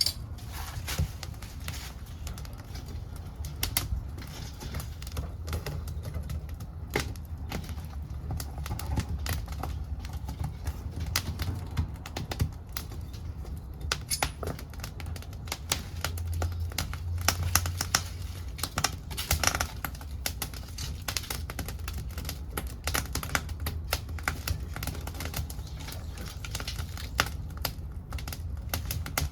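Wood fire in a pail-can wood-gas stove, burning old futon-chest boards: constant irregular crackling with sharp pops, over a steady low rumble of the burning.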